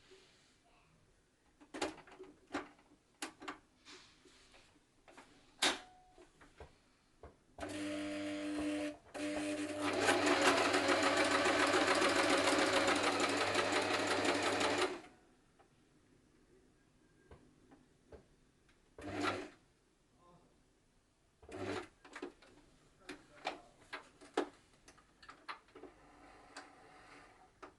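Singer 8280 sewing machine running for about seven seconds, first at a slower, quieter speed, then faster and louder before stopping abruptly. Scattered clicks and knocks come before and after the run.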